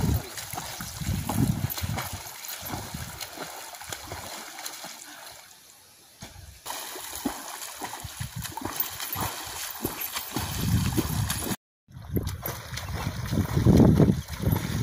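Water splashing from a swimmer's overarm strokes and kicks in a pond, coming in irregular bursts and loudest near the end. The sound cuts out completely for a moment a little before twelve seconds in.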